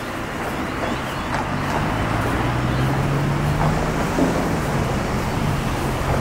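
Road traffic passing on the roadway beside the footway: a steady rush of cars with an engine hum that grows louder about a second in.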